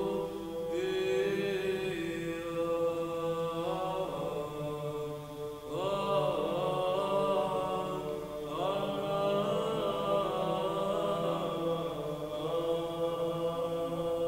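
Orthodox church chant: male voices singing a slow melody in long held phrases over a steady low drone note.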